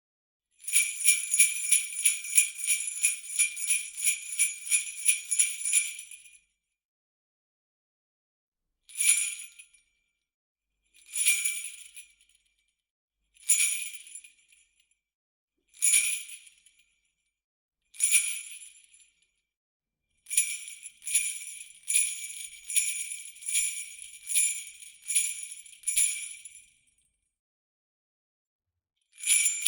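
Beat ring of jingle bells shaken in a rapid, even rhythm for about six seconds. It is then struck five single times about two seconds apart, each jingle ringing out briefly. After that it is shaken rapidly again for about six seconds, stops, and starts again right at the end.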